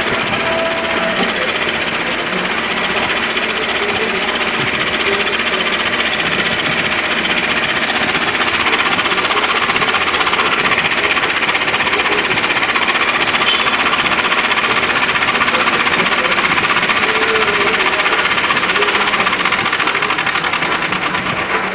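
Small tracked excavator's diesel engine running hard with a fast, steady clatter while its boom and hydraulics take the machine's weight, hoisting it onto a truck bed.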